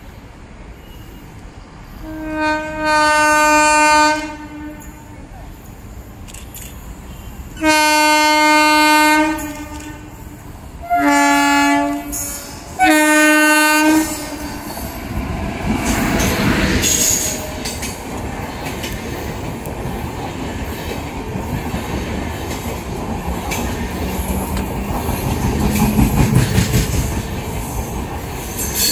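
Electric locomotive horn sounding four times, two long blasts and then two shorter ones, as an express passenger train approaches. The train then runs through the station without stopping: the rumble and clickety-clack of its coach wheels grow louder as the coaches pass close by.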